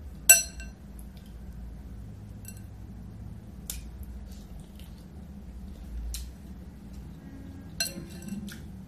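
Wet, squishy sounds of fingers picking shrimp out of butter sauce in a glass bowl and eating them. A sharp ringing clink against the glass bowl about a third of a second in is the loudest sound, with a few faint clicks and a second, weaker ringing clink near the end.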